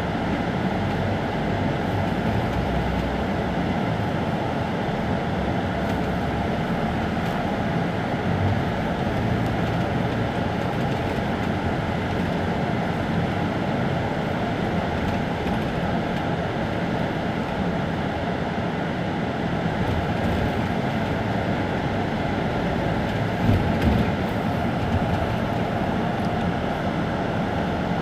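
Isuzu Turquoise midibus's four-cylinder diesel engine idling steadily at a standstill, with a brief louder spike about 23 to 24 seconds in.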